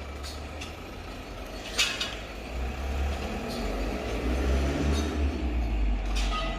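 A low rumble that grows louder about two and a half seconds in. A sharp click from the trading cards being handled comes about two seconds in.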